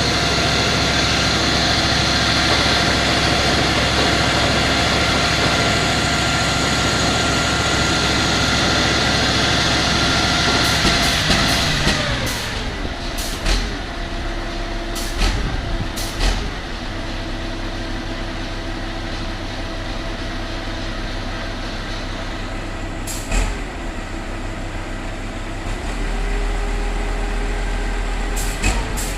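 Heavy machine engine running hard and steady, then its pitch falls and it settles to a lower, quieter run about twelve seconds in. A few sharp knocks follow, with a quick cluster of them near the end.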